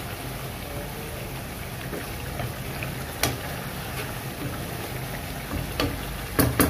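Pomfret curry simmering in a pan on the stove: a steady bubbling hiss as the gravy reduces. A few light clicks come through it, with two louder knocks near the end.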